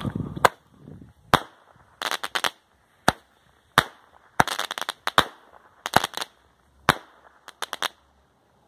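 Dominator 'Creeper' 7-shot consumer firework cake firing. A string of sharp bangs from its shells comes over about eight seconds, several of them in quick clusters of crackling pops.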